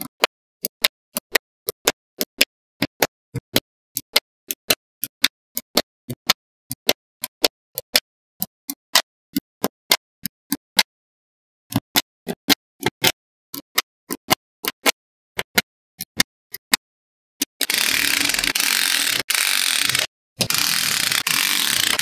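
Small magnetic balls snapping together one at a time, sharp separate clicks about two or three a second with a brief pause partway through. Near the end the clicks give way to a loud continuous rough noise that stops briefly and starts again.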